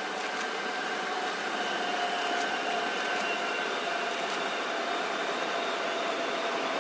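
Trenitalia regional train pulling slowly into the station: a steady rolling rumble with a thin whine that falls slightly in pitch as it slows, growing a little louder.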